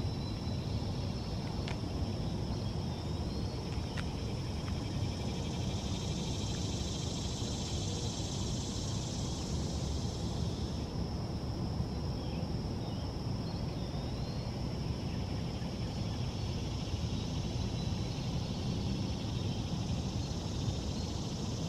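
Outdoor ambience: a steady low rumble with a constant high thin whine over it, thickening into a broader high hiss for a few seconds in the middle. A few faint short bird chirps come through now and then.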